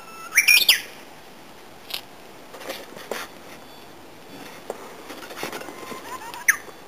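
Japanese bush warbler (uguisu) singing its hoo-hokekyo song. At the start a held whistle breaks into a quick flourish of rising and falling notes; near the end another held note ends in a sharp upward flick. Short chirps are scattered between the two phrases.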